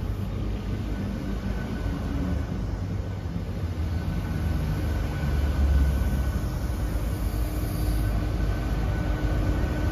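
Class 43 HST train's Mark 3 coaches rolling slowly along the platform as the train slows to a stop: a steady low rumble, with a faint steady whine coming in a few seconds in.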